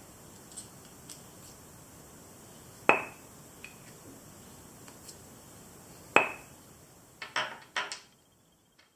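Small steel parts clinking together as a steel sleeve is fitted on and off the shank of a small keyless drill chuck: two sharp metal clinks with a brief ring about three and six seconds in, then a quick run of four lighter knocks as the parts are set down near the end.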